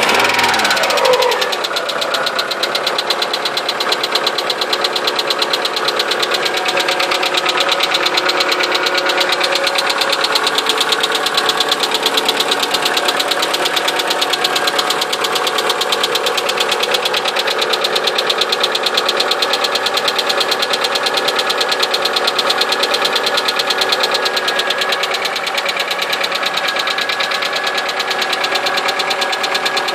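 Car engine running with a rapid, even knocking. The revs fall back within the first second or two, then it settles into a steady idle.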